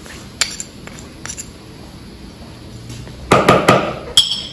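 Kitchen clatter of a metal spoon and a small salt pot: a few light clicks as salt is spooned out, then, about three seconds in, a louder clatter and a sharp ringing clink as the pot and spoon are set down.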